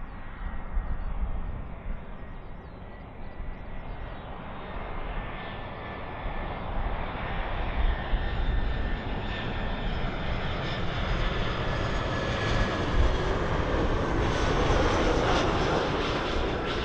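Airliner engines running and growing steadily louder as the aircraft approaches, a broad rush with a faint whine that gets brighter toward the end.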